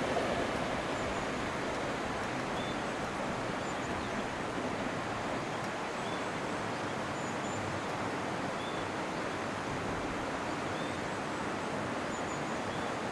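Steady outdoor rushing background noise, with the last of a 383 series electric train fading away into a tunnel over the first couple of seconds. Faint short high chirps recur every second or two.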